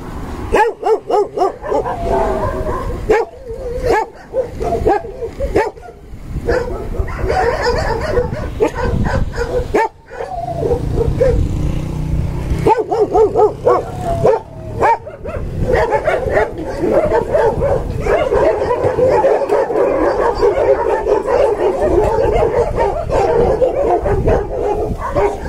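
Several shelter dogs barking and yelping together. The calls come in patches in the first half, with a brief lull about ten seconds in, and overlap almost without pause through the second half.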